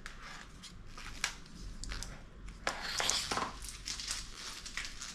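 Plastic rustling and scattered small clicks and taps from handling a car fog-light wiring harness, its relay and wire leads, with a busier patch of rustling about three seconds in.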